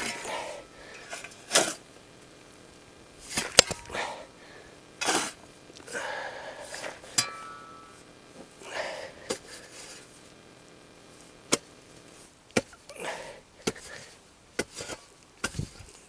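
Stones being gathered into a bucket: about a dozen irregular sharp clacks of stone on stone, mixed with short scrapes and one longer rattle about six seconds in, with no steady rhythm.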